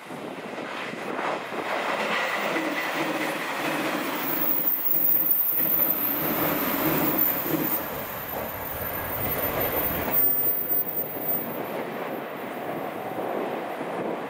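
JR Shikoku 8000 series electric limited express train passing at speed, its wheels running over the rails. The sound builds as the train approaches, is loudest as the cars go by, and drops off about ten seconds in as the last car clears.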